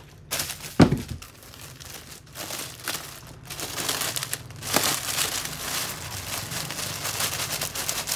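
Clear plastic garment packaging crinkling and rustling as a packed suit is lifted out of its box and handled, with a single thump about a second in.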